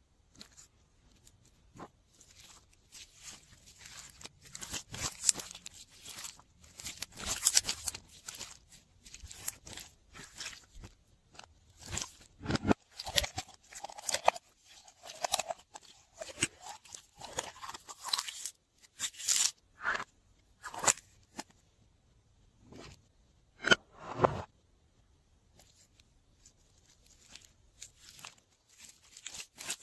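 Slime being worked by hand: many irregular, sticky crackles and pops, with a few squelches about halfway through. It goes quiet for a couple of seconds near the end.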